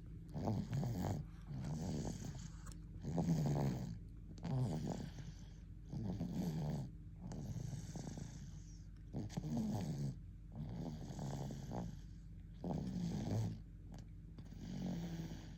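A one-year-old baby snoring in its sleep while sucking, with rhythmic snores about every one and a half seconds and soft sucking noises between them.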